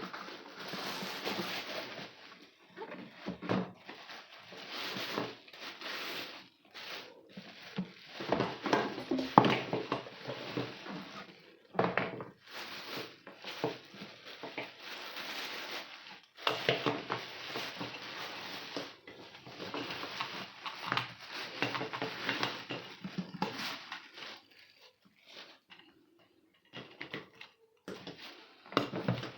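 Irregular rustling and clattering from handling packaging and plastic parts, in bursts of a second or two with short pauses and a few sharp knocks.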